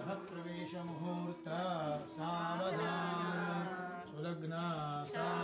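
Male voice chanting Sanskrit mantras, holding one steady reciting pitch for long stretches with short breaks between phrases.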